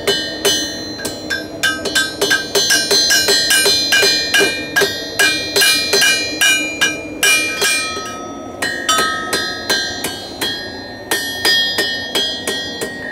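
Blacksmith's hammer striking steel on an anvil, forging a knife blade: a quick, steady run of ringing blows, about three a second, with a brief pause about eight seconds in before the hammering resumes.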